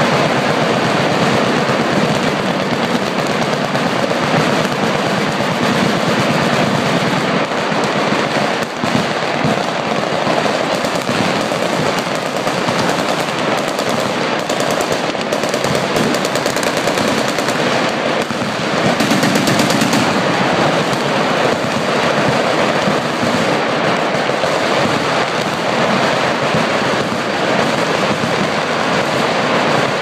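Many machine guns on a firing line shooting at once, their bursts overlapping into continuous rapid gunfire with no pause.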